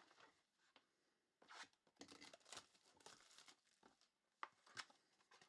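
Faint rustling and crinkling of trading-card pack wrappers and cards being handled, in short scattered bursts, with two sharp clicks near the end.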